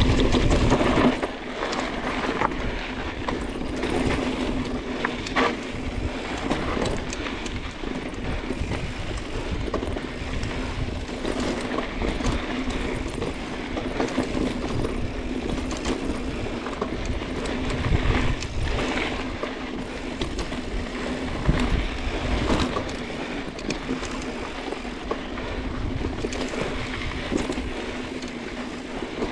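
Mountain bike rolling fast down a dirt singletrack: steady tyre noise on dirt and rock, the bike clicking and rattling over bumps, and wind on the microphone.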